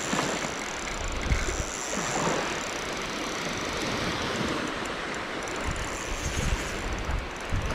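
Small waves washing onto a sandy beach, a steady hiss of surf, with gusts of wind buffeting the microphone about a second in and again in the second half.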